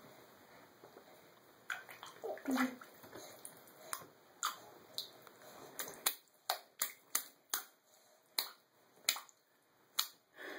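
A baby's hand patting and slapping the bathwater, a series of short, sharp little splashes that come louder and closer together, about two a second, from a little past the middle.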